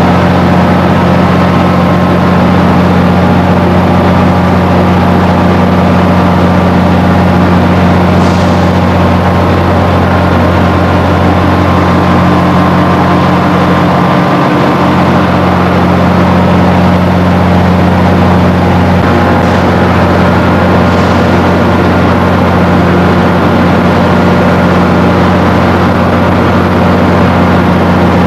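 Stationary Acela Express train humming steadily at a station platform, a loud low drone that holds one pitch throughout.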